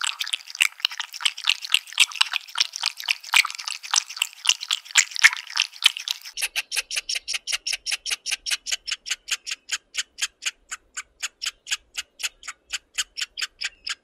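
High-pitched animal chattering: dense, irregular quick chirps that change about six seconds in to an even run of sharp clicking calls, about five a second.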